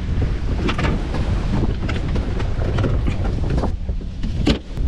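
Wind buffeting the microphone on a boat at sea, a steady low rumble, with a few sharp knocks, the loudest near the end.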